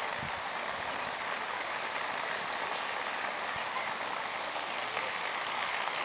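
Steady hiss of rainforest background noise, with a couple of faint, short high chirps about two and a half and four seconds in.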